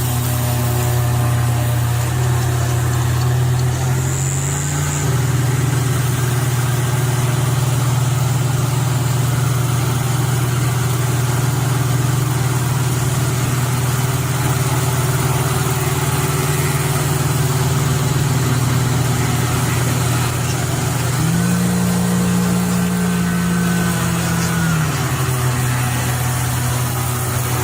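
A large engine running steadily with a constant low drone. For about three seconds late on, its pitch steps up and then drops back.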